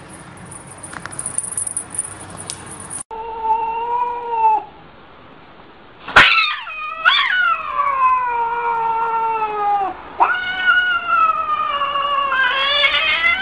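Cat yowling: one short call, then from about six seconds in a string of long, drawn-out wailing cries that slide in pitch, the threat yowling of a cat standing with its back arched.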